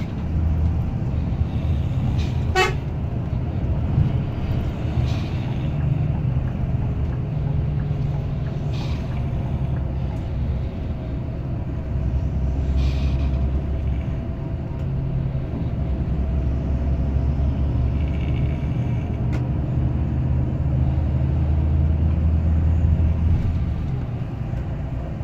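Large highway coaches as a Scania multi-axle overtakes a sleeper bus: a heavy, deep engine rumble throughout, shifting in pitch now and then, with horn toots.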